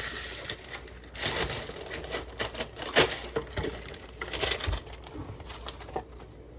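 Parchment paper pulled off the roll and torn, crinkling and rustling in several bursts, with a sharp, loud crackle about three seconds in.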